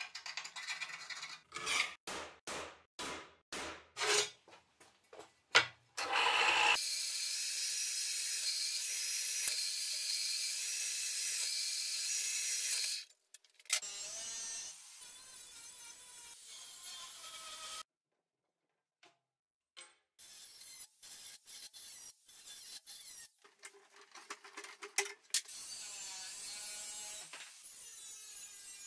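A steel scriber scratching a line on sheet steel in quick back-and-forth strokes. Then an angle grinder's cut-off disc cuts through the steel sheet with a steady, loud, high hiss for about six seconds. It goes on more quietly in shorter cuts, stopping briefly partway through.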